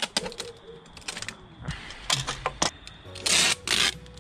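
Tape pulled off the roll of a handheld tape dispenser: several short rips, then two longer, louder pulls near the end.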